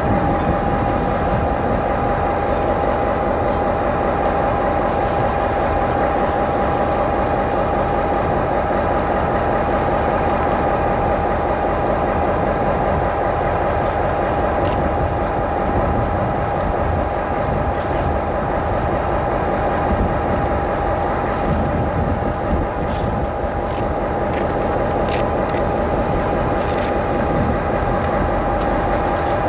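Taiwan Railways R100-class diesel-electric locomotive idling while standing, a steady low engine rumble with a constant whine held on one pitch. A few faint clicks come in the second half.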